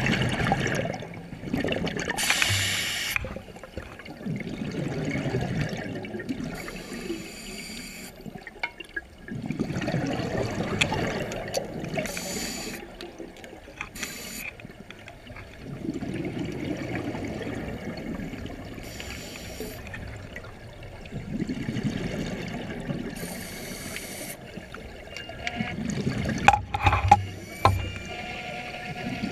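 Scuba diver breathing through a regulator underwater: a short hiss on each inhale, then a longer bubbling rush of exhaled air, repeating every five to six seconds. A few sharp clicks come near the end.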